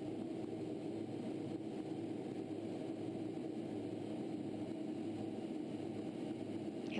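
Steady drone of a T-38 jet in flight, heard from inside its cockpit: even engine and airflow noise with a low constant hum.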